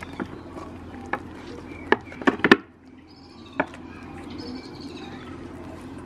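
Goat kids crowding and biting at a hand-held tomato: scattered sharp knocks and clicks, the loudest cluster a little past two seconds in. A small bird sings short, high warbling phrases in the background.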